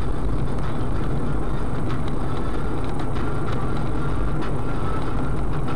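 Steady low rumble of a moving car's engine and road noise, picked up by a dashcam inside the cabin, with a few faint clicks.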